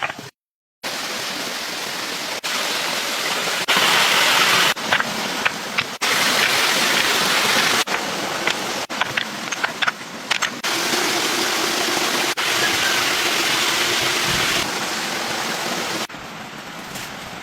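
Steady rushing noise like running water, broken by abrupt cuts every second or two, with a few small sharp knocks in the middle.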